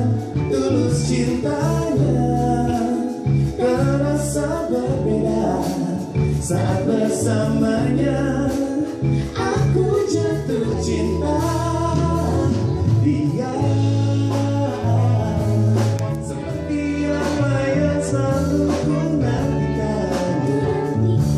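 Live duet by a male and a female singer over a backing band, the voices carrying a melody over steady bass and chords.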